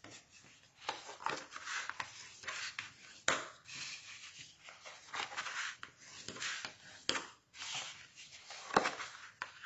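Cardstock being folded along its score lines and smoothed flat by hand: an irregular run of short rustles and scrapes of card, with a few sharper clicks.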